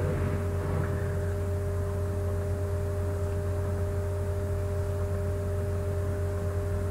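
Steady background hum: a low electrical drone with two faint steady higher tones over a light hiss, and no other sound.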